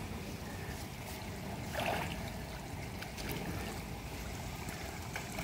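Pool water splashing and lapping as a child kicks and sculls, swimming on her back, with one brief louder moment about two seconds in.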